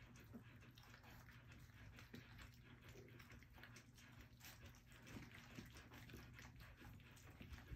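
Faint, quick lapping and smacking of a litter of almost four-week-old puppies eating their first meal from a stainless-steel bowl, over a low steady hum.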